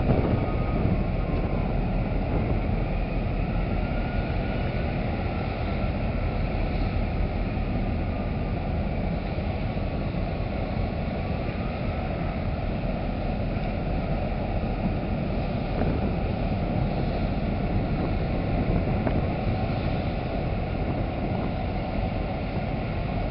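Commodore Clipper ro-ro freight ferry manoeuvring: a steady low rumble of its engines and propellers churning the harbour water at the stern.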